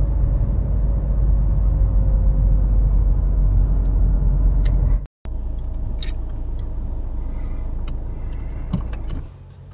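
Low rumble of a car running, heard from inside the cabin as it rolls slowly to a stop. It breaks off sharply about five seconds in, then carries on quieter, with a single click near the end before it drops away.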